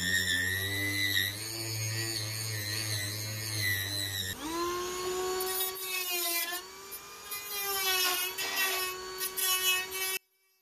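Handheld rotary tool with a small cutting bit running at high speed and cutting through the plywood bracing of a model-airplane fuselage. Its whine wavers and dips in pitch as the bit bites. A steady low hum runs alongside it until about four seconds in, and near the end the sound cuts off abruptly.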